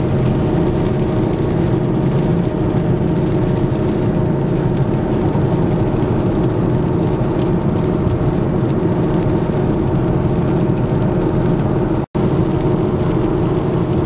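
Steady road and engine noise of a car at highway speed, heard from inside the cabin, with a split-second gap about twelve seconds in.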